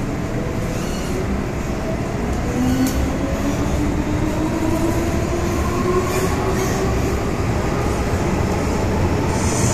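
MTR M-Train electric multiple unit running, with steady wheel and track rumble and a motor whine that rises slowly in pitch in the middle as the train picks up speed.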